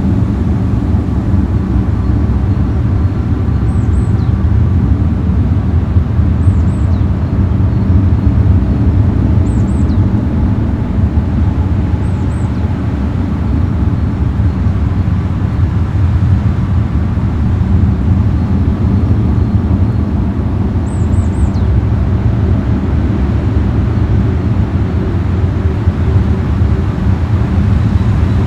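Loud, steady low drone, with a few faint, short high chirps every few seconds.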